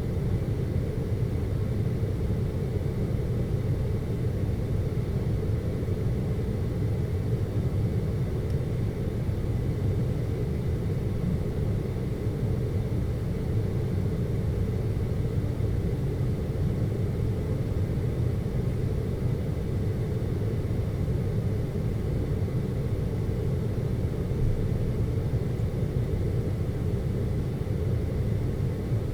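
Steady deep ambient hum, an even rumbling noise of the brown-noise kind used to mask sounds for sleep, with a faint thin tone above it.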